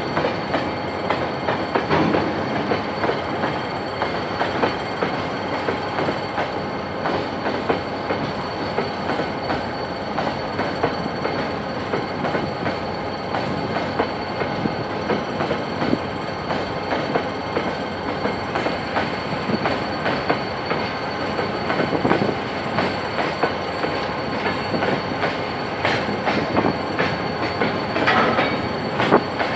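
Empty coal train's open wagons rolling steadily past, wheels clattering over the rail joints, louder near the end, with a thin steady squeal above the rumble.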